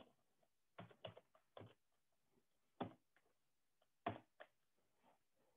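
Faint typing on a computer keyboard: about ten separate keystrokes in small, irregular clusters.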